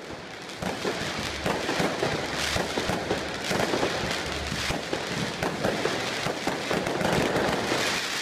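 Fireworks going off in rapid succession: a dense, continuous crackle of many small bangs and pops.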